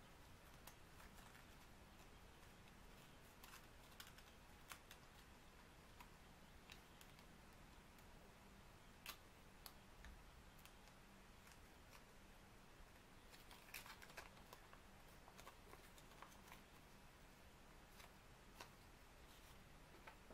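Faint, scattered crinkles and clicks of small folded paper pieces and tape being handled and pressed together, over quiet room hiss.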